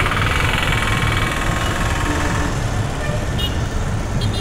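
Busy road traffic with vehicle engines running; a close engine buzzes for the first couple of seconds.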